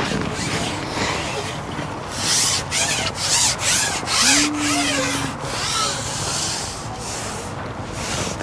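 Carbon fishing pole being shipped out, its sections sliding through the angler's hands in a series of rubbing, hissing strokes. A short low hum about four seconds in.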